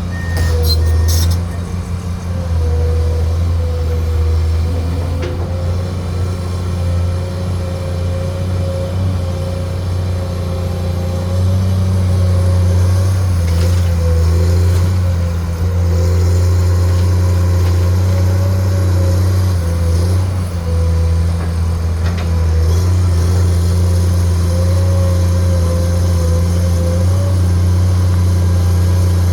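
Excavator engine running steadily while it digs, with a steady high whine over the low engine hum. A repeating warning beep stops about a second in.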